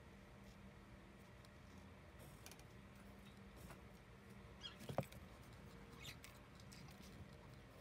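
Near silence: room tone with a steady low hum, a few faint clicks, and one brief sharp squeak about five seconds in.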